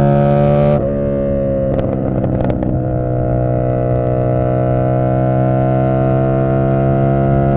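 Tuned CFMoto 450SS parallel-twin motorcycle engine and exhaust at cruising speed. The engine eases off about a second in, with a few sharp crackles soon after, then pulls steadily with its pitch slowly rising.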